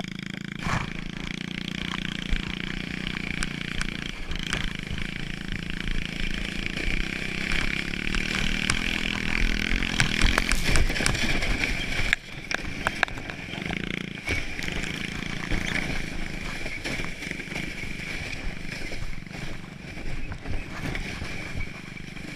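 Pit bike engine running steadily as it tows a plastic sled through snow, with the sled hissing over the snow and a run of knocks and bumps around the middle.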